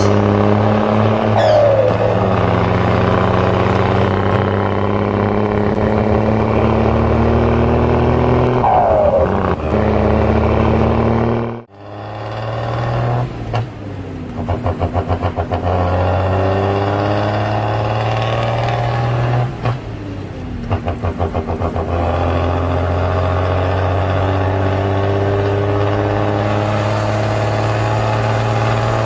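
Truck engine sound running and revving, its pitch climbing and dropping repeatedly as if through gear changes. It cuts out abruptly for a moment about twelve seconds in, then comes back with a fast chugging pulse.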